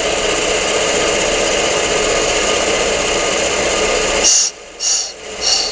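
Accuturn brake lathe running steadily with the brake drum spinning, then, a little past four seconds in, three short high-pitched scratches about half a second apart as the cutting bit touches the inside of the drum, which tells the operator the bit has reached the braking surface and has gone a little too far.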